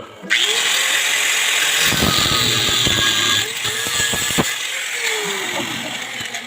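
A power tool running, a loud hissing noise that starts suddenly a moment in and eases off a little past halfway.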